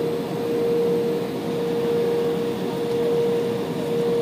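Cabin noise inside an Embraer E175 regional jet while it taxis: the steady hum of its GE CF34 turbofans and cabin air, with one constant mid-pitched whine running through it.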